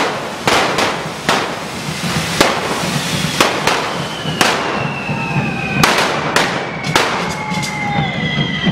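Correfoc devils' handheld spark-spraying fireworks hissing continuously, with a dozen or so sharp firecracker bangs at irregular intervals. From about a third of the way in, long whistling tones fall slowly in pitch, over a steady low rumble.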